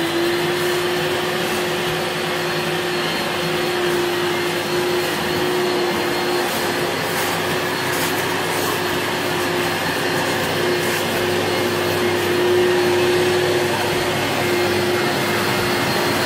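Carpet-and-upholstery washing machine's suction motor running steadily with a high, even whine, drawing the dirty water back out of the sofa fabric.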